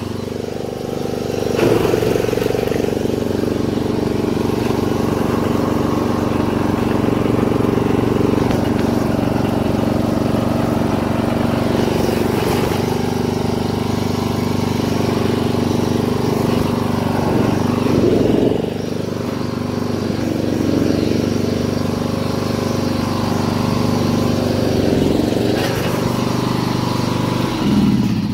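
Castle Garden ride-on lawn mower engine running steadily at full throttle. It steps up in level about a second and a half in, and its pitch wavers briefly a few times.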